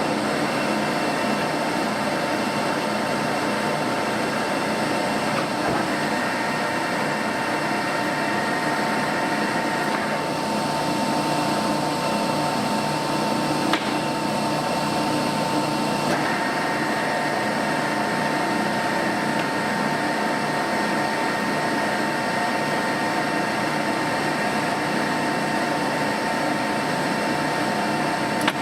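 Leblond gap bed lathe running under power, a steady gear-train whine with the half nut engaged to drive the carriage. A second, higher whine comes in about six seconds in, drops out around ten seconds and returns about sixteen seconds in, with a single click in between.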